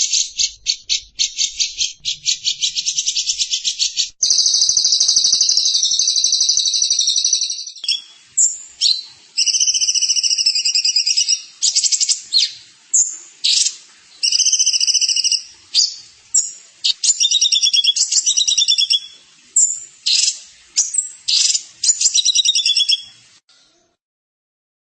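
Songbird singing fast, high trills. A rapid buzzy rattle changes abruptly, about four seconds in, to a long unbroken trill, then to a string of short trilled phrases with brief pauses. The song stops a second or so before the end.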